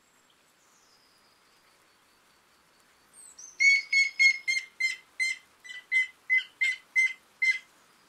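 Grey-headed woodpecker (Picus canus) calling: a run of about a dozen short, evenly pitched notes at about three a second, starting about three seconds in.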